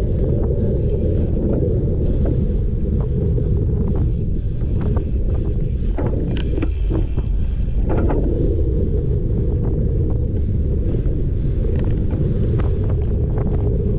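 Wind buffeting the microphone of a cyclocross racer's camera at race speed, with scattered clicks and rattles from the bike over rough ground. There are two louder knocks about six and a half and eight seconds in.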